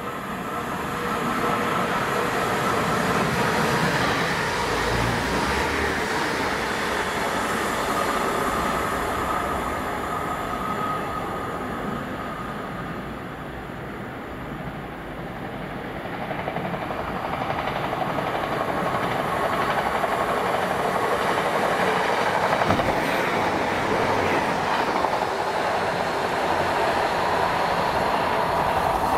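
Diesel multiple-unit passenger train running along the line past a station platform: steady, loud rail and engine noise that eases off about halfway through and builds up again towards the end.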